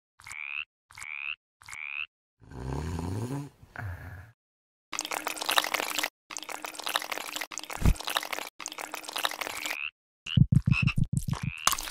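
Frog croak sound effects cut together: three short rising chirps, then two low croaks rising in pitch, then a long noisy scuffling stretch. Near the end comes a fast pulsing croak, about eight pulses a second, and one more short chirp.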